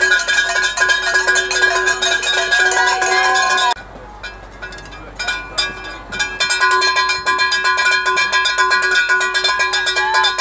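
Cowbells shaken fast and without a pause, a dense clanging ring. It drops to a lull for a couple of seconds about four seconds in, then starts up again.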